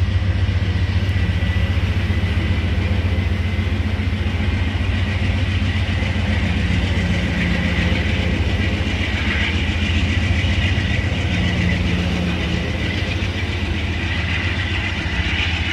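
Amtrak GE P42 Genesis diesel locomotive's 16-cylinder engine running with a steady low drone, with a thin steady whine above it.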